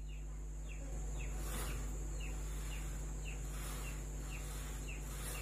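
A small bird chirping: short, falling chirps about twice a second, over a steady low hum.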